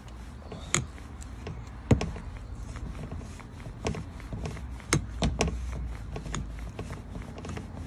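Hand handling and unscrewing the top of a Kore bicycle dropper post: a handful of sharp clicks and knocks from the parts, the loudest about two seconds in, over a low steady rumble.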